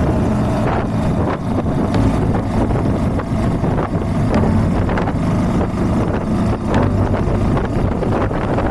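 Honda CB190R motorcycle's single-cylinder engine running under way, with wind buffeting the camera's microphone.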